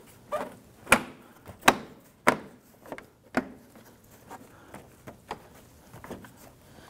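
Plastic grille on a Toyota Camry snapping into the front bumper as it is pushed into place, its tabs locking in with about four sharp clicks in the first three and a half seconds, then a few fainter knocks.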